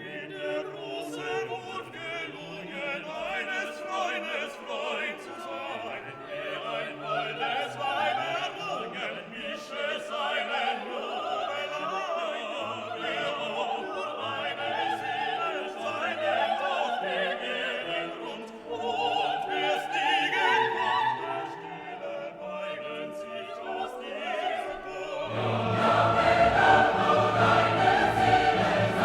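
Background music: classical choral music with sung voices and orchestra, growing louder near the end.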